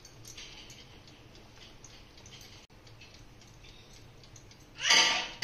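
Wire whisk stirring cake batter in a glass bowl, its tines ticking faintly and repeatedly against the glass. A much louder clatter with a short ring comes near the end.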